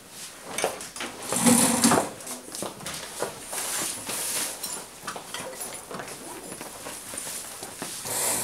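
Rustling of a plastic bag and other bags, with footsteps and scattered knocks, as people pack up and walk out of a room. The loudest rustle comes about one and a half seconds in.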